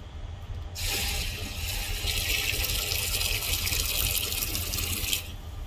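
Rice-washing water poured from a bowl into a metal pot: a steady splashing pour that starts about a second in and stops about five seconds in.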